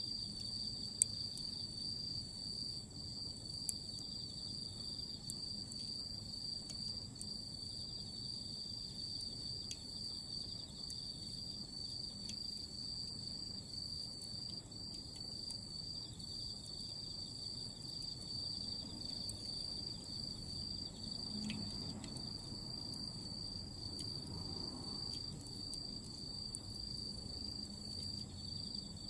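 Autumn insects trilling, a continuous high steady chirring, with now and then a sharp pop from Iwate cut charcoal (kiri-zumi) glowing as embers in a fire pit, the loudest about a second in.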